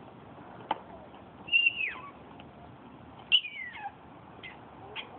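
French bulldog puppy giving two high-pitched whining yelps, each drawn out and falling in pitch, nearly two seconds apart: pestering calls aimed at her sister dog. A sharp click comes shortly before the first.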